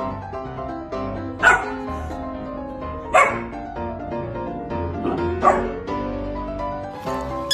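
Golden retriever puppy barking three times, short sharp barks about two seconds apart, over background music.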